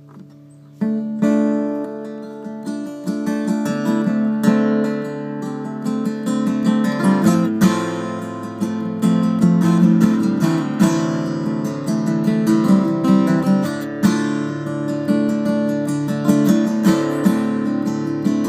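Steel-string acoustic guitar playing a riff, plucked and strummed with the fingers; the playing starts about a second in.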